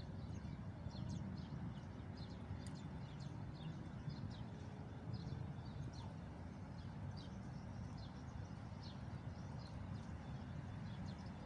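Small birds chirping repeatedly in short high notes, several a second, over a steady low rumble.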